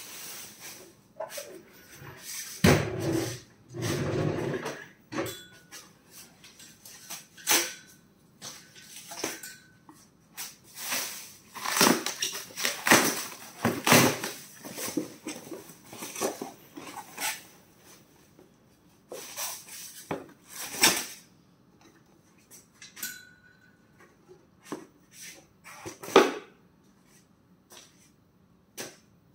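Plastic wrap rustling, and foam packing and treadmill parts being handled in a cardboard shipping box: irregular rustles and knocks, with a few brief squeaks.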